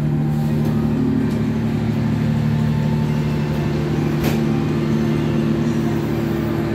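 Diesel-electric passenger train standing at a station with its diesel engines running: a steady, low, multi-toned hum, with a faint click about four seconds in.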